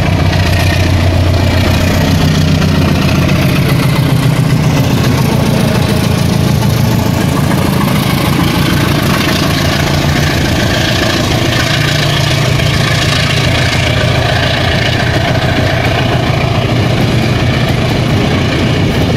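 Diesel locomotive engine running loud under power as it pulls a commuter train out of the station, its engine note rising and falling slightly.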